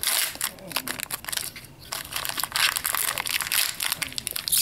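Clear plastic wrap and foil toy packaging crinkling and crackling as hands handle and pull it open, easing briefly about two seconds in.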